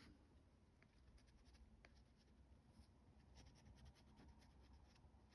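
Very faint scratching of a Caran d'Ache Neocolor II crayon stroking across rough cotton rag paper, a run of short strokes that comes more often in the second half.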